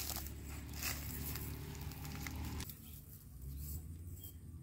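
Rustling and light clicking of a nylon cast net and its chain weights being lifted and shaken out by hand. A low steady rumble under it stops a little over halfway through.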